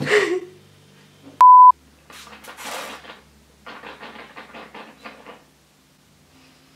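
A short, loud, steady beep about a second and a half in. Then yerba mate slurped through a metal bombilla: a couple of sucks, followed by a rapid run of short sucks that stops about a second before the end.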